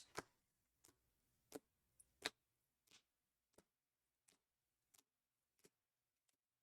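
Faint, irregular clicks and taps of trading cards being handled and set down, roughly one or two a second, the loudest a little past two seconds in.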